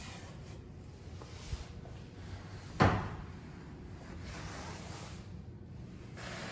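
A single sharp knock a little under three seconds in, with a short ring-off, as an interior door is opened; a faint click comes just before it, over quiet room tone.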